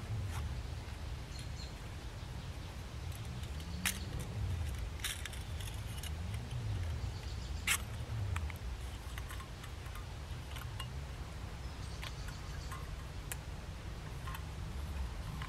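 Scattered sharp clicks and taps from small objects being handled in the hands, the two loudest about four and eight seconds in, over a steady low rumble.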